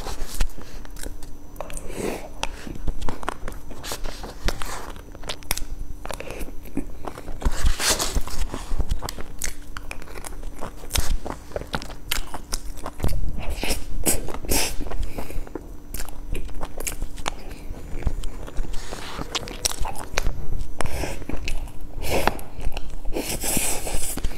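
Close-miked eating sounds: wet mouth clicks, smacks and chewing of soft cream and sponge cake. Irregular clicks and scrapes of a metal spoon against a paper cup run through it.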